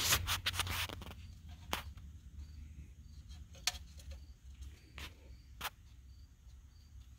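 A few sharp, isolated clicks and taps of metal parts being handled as the steering wheel and quick-release hub are shifted to line up the bolt holes. Faint high chirps repeat evenly in the background.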